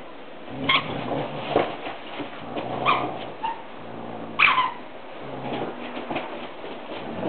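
Two standard poodles play-fighting over a stuffed toy: low play growls in stretches, broken by short, high squeals, the sharpest three about a second in, near three seconds and around four and a half seconds, the last one dropping in pitch.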